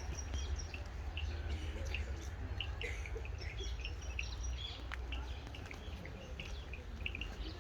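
Small birds chirping: many short, high chirps from several birds overlapping, over a steady low rumble.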